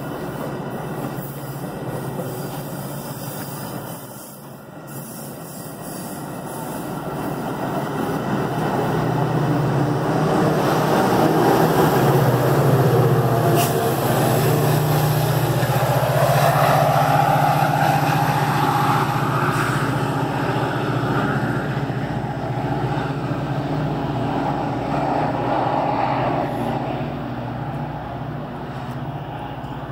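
Metra commuter train passing close by: the rumble of bilevel coaches on the rails and the steady drone of its diesel locomotive, building to its loudest about halfway through as the locomotive goes by, then slowly easing off.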